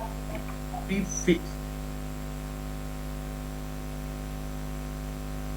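Steady electrical mains hum with a ladder of overtones, with a brief word or two of speech about a second in.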